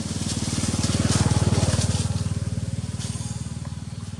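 A vehicle engine passing by, growing louder to a peak a little over a second in and then fading away.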